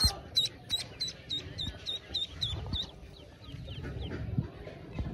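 Pekin duckling peeping: a quick run of short, high-pitched peeps, about three or four a second, that fades out after about three seconds.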